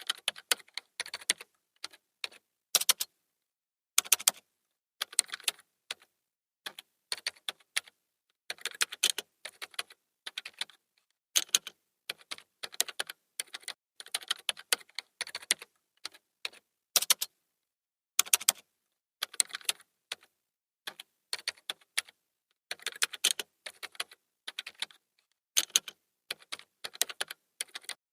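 Typing on a computer keyboard: quick runs of key clicks in irregular bursts, with short pauses of about a second between them.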